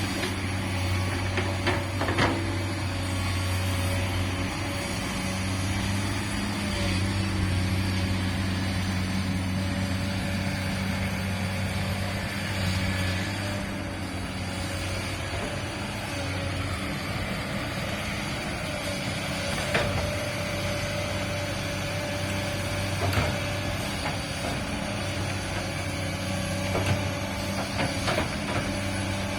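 Komatsu PC200-8 excavator's six-cylinder diesel engine running steadily, with a few short, sharp knocks from the machine.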